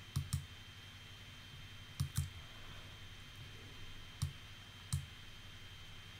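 Computer mouse button clicks: a quick double click near the start, another double click about two seconds in, then two single clicks around four and five seconds.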